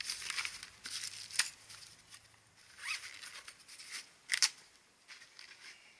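Rustling and handling of a black fabric tool bag and a paper sheet being tucked into it, with a few short sharp bursts, the loudest about four and a half seconds in.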